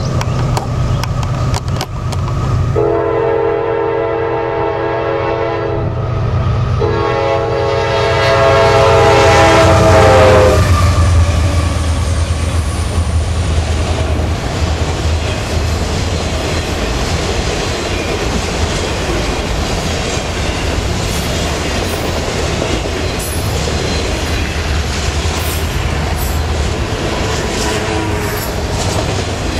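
Freight train locomotive air horn sounding two long blasts as the train nears a grade crossing, the loudest moment coming as the locomotives pass. Then a long string of autorack freight cars runs by at about 49 mph with a steady rumble and clatter of wheels on rail.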